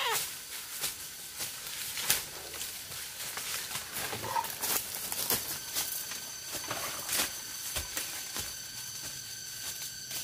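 Dry leaf litter and twigs crackling and rustling underfoot, in many short irregular clicks. A short falling animal call sounds at the start, and a steady high insect drone sets in about halfway through.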